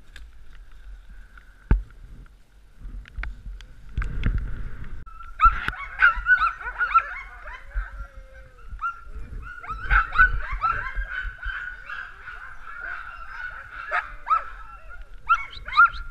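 Sled dogs whining, then many overlapping high yelps and yips from about five seconds in.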